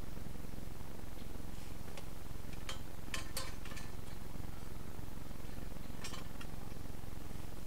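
A few short clicks and rustles of something being handled on the leaf-litter forest floor, a cluster about three seconds in and another about six seconds in, over a steady low background rumble.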